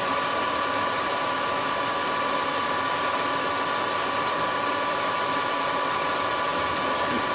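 Hafco HM 54GV milling machine running steadily with a high whine, while an aluminium block is hand-fed slowly under the cutter for a light skim cut to flatten its bowed face.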